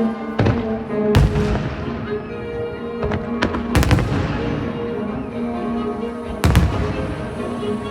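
Aerial firework shells bursting in several sharp booms, the strongest three spaced a few seconds apart, over orchestral music playing throughout.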